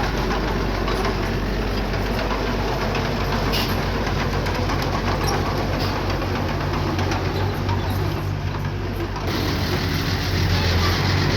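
Diesel engine of a construction machine running steadily, with a brief dip in level near the end before it picks up again.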